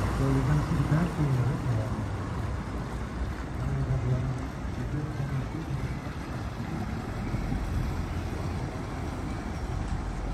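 Canal tour boat's motor running steadily as the boat passes and draws away, with faint voices over it.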